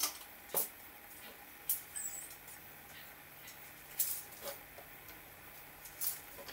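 Scattered light clicks and taps from handling a metal can of PVC cement and its lid and PVC pipe fittings on a wooden workbench, with a faint steady hum from about a second in.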